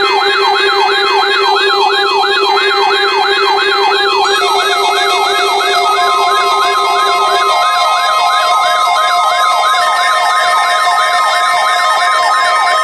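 Weather alert radio alarms sounding together: a siren-like tone sweeping up and down about three times a second over steady alert tones. A further steady high tone joins about six seconds in.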